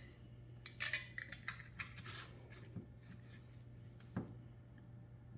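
A lid being put on a jar and screwed down: a run of small clinks and scrapes in the first couple of seconds, then a single knock about four seconds in.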